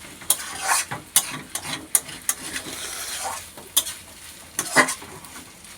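A fully cooked mixed-vegetable chorchori being stirred in a pan over the heat, with a steady sizzle and about ten sharp, irregularly spaced scrapes against the pan.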